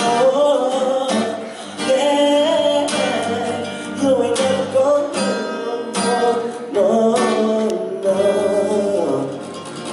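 Live acoustic song: a male voice singing long gliding phrases, each a couple of seconds long, over acoustic guitar.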